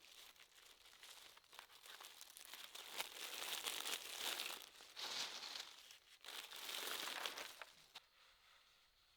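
Crinkling, rustling noise with small clicks, swelling several times, then stopping about eight seconds in.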